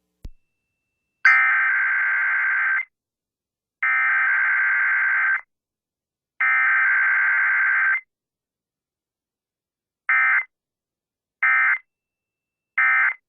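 Emergency Alert System SAME data tones of a weekly test: three buzzing digital header bursts of about a second and a half each, starting about a second in, then three short end-of-message bursts near the end.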